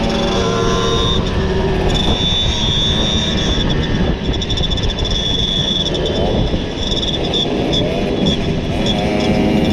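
Two-stroke Simson moped engines running under way, with a steady high whine over the engine note. The pitch rises as they accelerate about six seconds in and again near the end.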